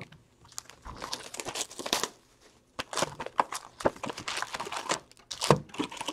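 Upper Deck hockey card packaging being crinkled and torn open by hand, in several irregular bursts.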